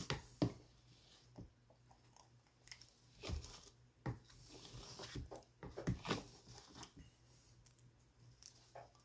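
Close-up eating sounds: a metal spoon scraping and tapping in a bowl of banana pudding ice cream, with mouth and chewing noises, as irregular clicks and smacks of uneven loudness.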